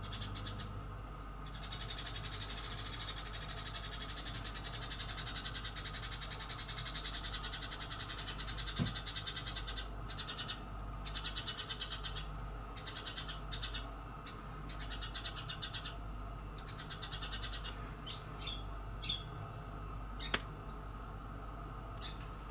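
House cat making a fast, fluttering pulsed sound in bouts, first one long stretch and then shorter broken ones, followed by a few short high chirps and a single sharp click near the end.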